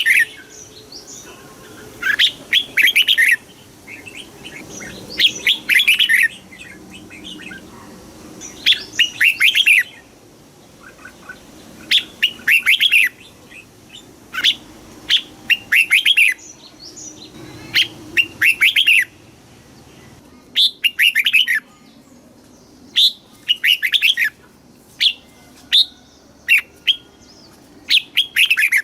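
Red-whiskered bulbul singing: short, loud phrases of a few quick notes, repeated every two or three seconds.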